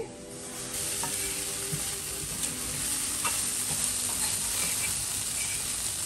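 Meal maker (soya chunks) frying in a pan, a steady sizzle that sets in just under a second in, with a few faint clicks.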